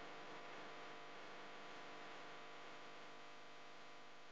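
Faint steady hum, fading slightly.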